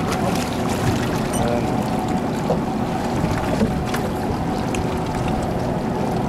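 Boat engine running steadily, with a few light clicks and knocks.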